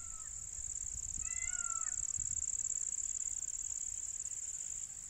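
Crickets keeping up a steady, high-pitched shrill, with a crow cawing once about a second in. Low wind rumble on the microphone.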